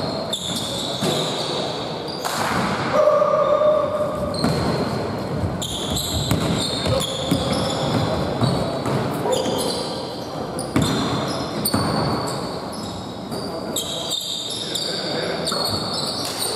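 Basketball game on a hardwood gym floor: many short, high sneaker squeaks and the ball bouncing, with players' voices, all echoing in a large hall.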